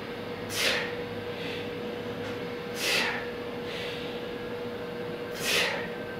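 A man's forceful exhalations while doing push-ups: three short, loud breaths out, each a hiss that drops in pitch, about two and a half seconds apart, one per rep, with fainter breaths in between. A steady low hum runs underneath.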